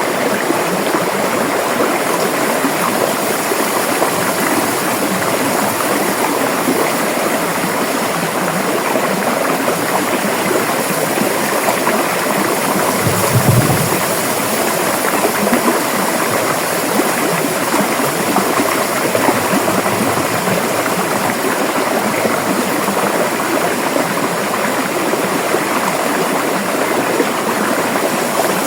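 River water flowing steadily, a constant even rush. A brief low thump a little under halfway through.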